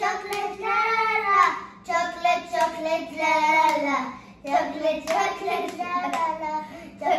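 Two children singing a hand-clapping rhyme together, with sharp slaps of their palms against each other's hands as they play the clapping game.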